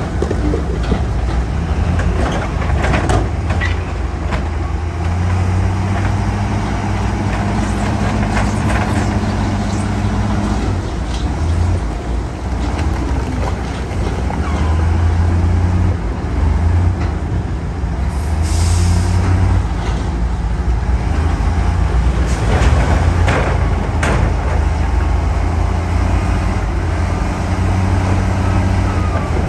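Heavy diesel engines of dump trucks and a bulldozer running, the drone swelling and easing, with a few knocks. There is a short hiss of air brakes a little past halfway through.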